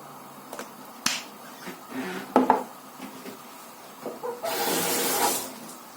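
Kitchen handling sounds beside a frying pan: a few sharp clicks and a short clatter, then a hiss lasting about a second.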